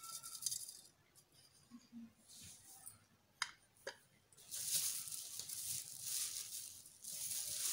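Flour being sifted through a hand-held metal mesh sieve, a dry hissing rattle in several spells of shaking. About halfway through come two sharp taps on the sieve.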